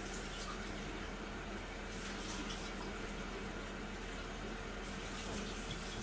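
Kitchen tap running steadily into a sink while an avocado stone is rinsed under the stream.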